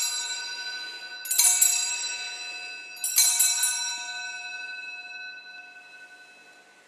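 Altar bells rung three times, each shake followed by long ringing tones that slowly fade. They are rung at the elevation of the chalice during the consecration.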